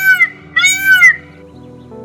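Cat meowing in short, high, arching mews about twice a second; one ends just after the start and a last one runs from about half a second to one second in, over steady background music.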